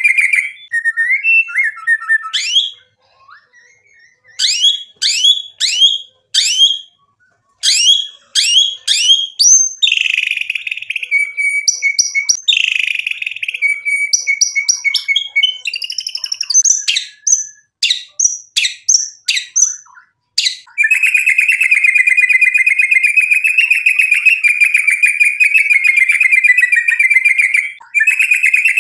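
Male white-rumped shama (murai batu) singing loudly: a varied run of sharp, rising whistled notes with short pauses between them. About two-thirds of the way through it breaks into a long, fast, steady trill, broken once briefly near the end.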